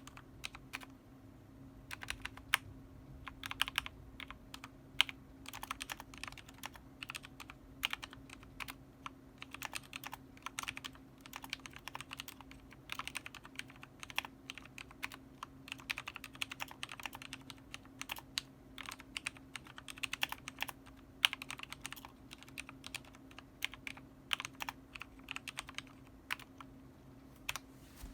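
Typing on a mechanical keyboard with lubed switches: irregular runs of keystrokes, each a short click-clack, over a faint steady hum.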